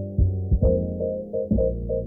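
Background music with a steady beat and held notes, sounding muffled.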